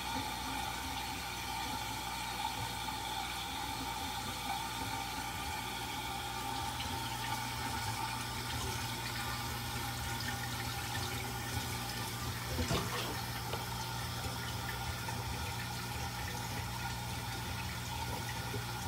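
Water pouring steadily into an aquarium from a fill pipe during a water change, with a steady hum underneath and a short knock near the middle.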